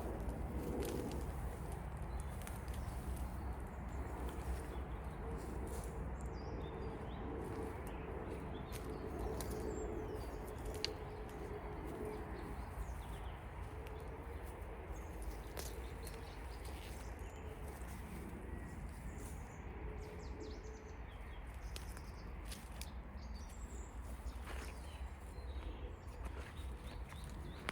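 Outdoor ambience with scattered short bird chirps over a steady low rumble. A faint hum comes and goes through the first two-thirds and then fades out.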